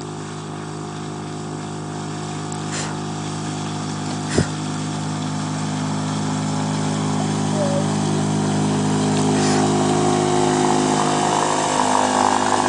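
Small Suzuki DF2.5 four-stroke outboard motor running at steady high revs, growing louder as the boat approaches, with a rising rush of water towards the end. One sharp knock about four seconds in.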